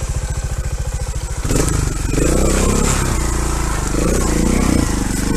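Trials motorcycle engine ticking over with a rapid, even putter, then about a second and a half in the throttle opens and it revs louder and unevenly under load.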